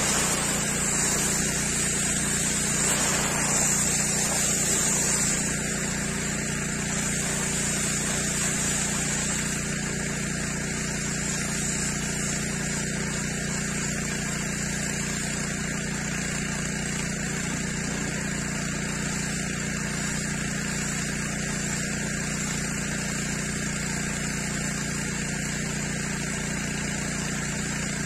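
Pressure washer running steadily, its motor humming under the hiss of the water jet spraying the paved floor. The hiss is louder for the first five seconds or so, then settles lower.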